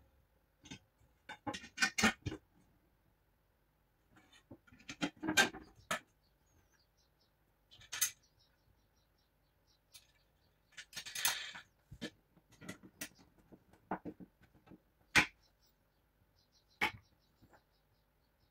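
Aluminium extrusion profiles handled on a wooden table: scattered knocks, clicks and short scrapes as the bars are set down and pushed together, with the sharpest knock about fifteen seconds in.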